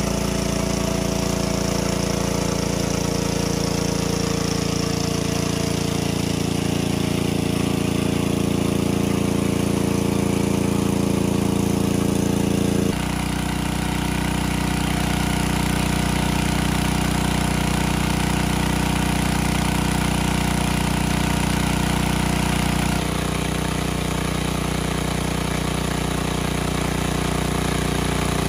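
Engine-driven water pump running steadily as it pumps water out of the pool, with two abrupt shifts in its tone.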